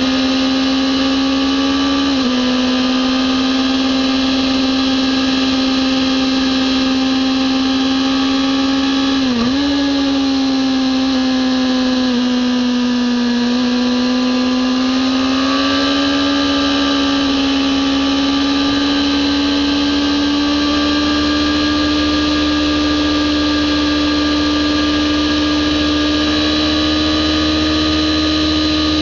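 Kawasaki ZX-10R's inline-four engine running hard at high revs in third gear, a steady high whine. The pitch dips briefly twice, about two and nine seconds in, as the throttle eases, sags a little past the middle, then climbs steadily toward the end as the bike accelerates.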